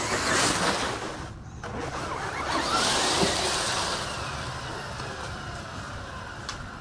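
Small electric RC car's motor whining in two revving bursts, with its wheels spinning and churning through dry leaves. The car stays stuck in the leaf pile. A fainter steady whine follows the second burst.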